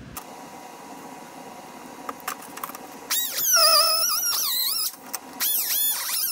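Pneumatic cut-off wheel cutting thin aluminium sheet: after a few light clicks, a high screeching whine starts about three seconds in, its pitch dipping and rising as the wheel bites. It breaks off briefly near five seconds, then starts again.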